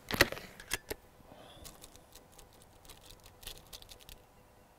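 .22 Diana AR8 magnum break-barrel spring-piston air rifle being cocked: a sharp clack just after the start, then two more clicks within the first second as the barrel breaks and the spring latches. Faint small clicks and handling follow until about four seconds in, as a pellet is set into the open breech.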